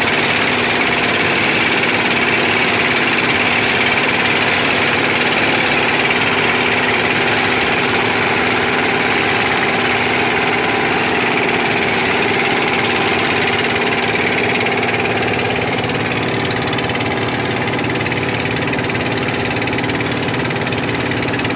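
Small fishing boat's engine running at a steady speed, a constant hum with a hiss of wind and water over it; slightly quieter for the last few seconds.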